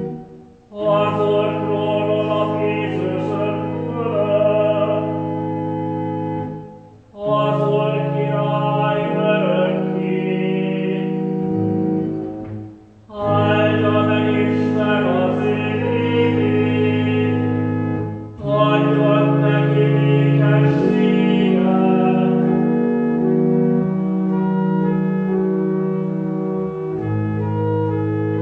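Pipe organ playing sustained chords under a singing voice, a Hungarian responsorial psalm sung in four phrases with short breaks between them. For the last few seconds the organ holds its chords alone.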